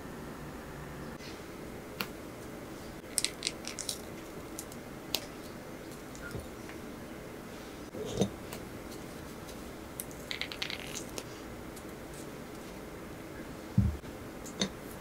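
Thin kinako (roasted soybean flour) cookies made with potato starch being snapped and broken apart by hand: scattered small crisp snaps and crackles, with a soft low thump near the end, over a steady low room hum.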